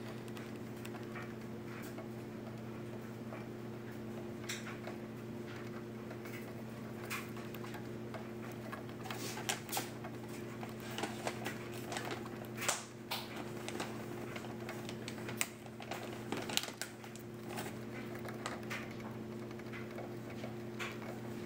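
Dwarf hamster gnawing on the wire bars of its cage: irregular clicks and rattles of teeth on metal, thickest around the middle, over a steady low hum.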